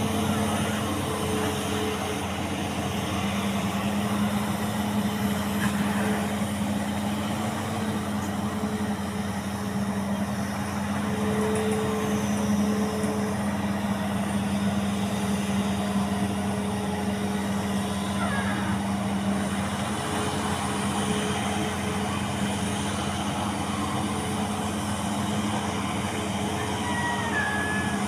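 An engine running steadily at a constant speed, an even low hum that never changes pace.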